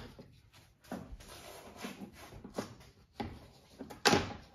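Plastic push-in retaining clips being pried out of a plastic engine undercover with a trim removal tool: scattered small clicks and scrapes, with one sharp click about four seconds in.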